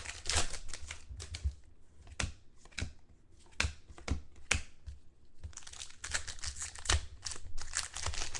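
Football trading-card packs and cards being handled: wrappers crinkling and tearing, with scattered sharp clicks and taps. The rustling gets denser about halfway through.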